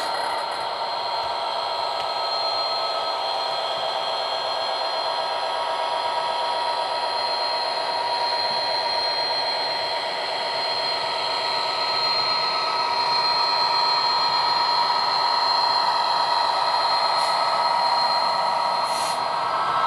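The sound decoder of an OO gauge Bachmann Class 66 model plays a recorded Class 66 diesel engine through small onboard speakers as the model runs. It is a steady engine drone with high whining tones held throughout, a little louder in the second half, over the model's wheels running on the track.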